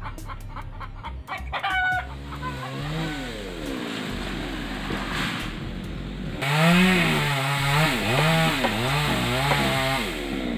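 Chickens clucking for the first two seconds, then a two-stroke chainsaw starts up. It runs low for a few seconds and is then revved up and down several times in quick succession.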